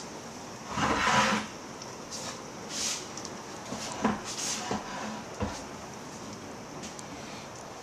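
Heavy thunderstorm downpour: a steady rain hiss, with a louder rushing burst about a second in and a few short knocks.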